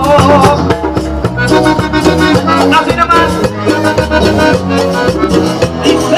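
Cumbia band playing an instrumental passage with no singing: a steady dance rhythm over bass, percussion and a melody line.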